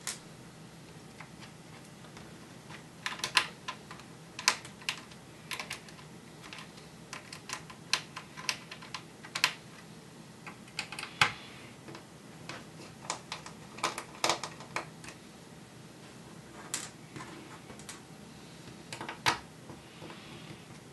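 Irregular light clicks and taps of hands and a screwdriver working on a Dell Latitude 3540 laptop's plastic underside as its screws of mixed lengths are removed, in scattered clusters with a sharper click about halfway through.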